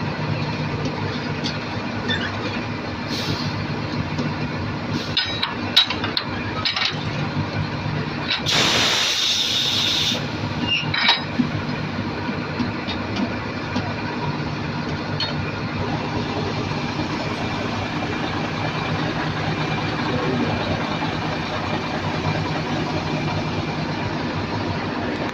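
Heavy diesel engines of asphalt-paving machinery running steadily, with a few metallic clinks and a loud hiss lasting about a second and a half, around 8 seconds in.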